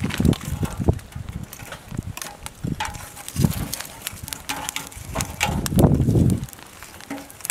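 Irregular knocks, clunks and heavy thumps of firewood logs being handled and shifted in a square metal fire brazier, with a few brief metallic rings; the heaviest clunks come around the middle and a little past it.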